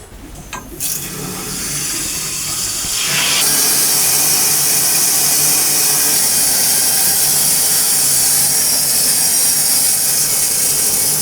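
A steady, loud rushing hiss, mostly high in pitch. It builds over the first few seconds, holds even and cuts off abruptly at the end.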